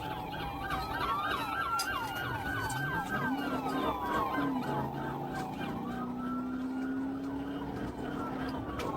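Police car sirens: a fast yelp repeating about four times a second, overlapped by a slower wailing siren, over a vehicle engine that revs up about three seconds in.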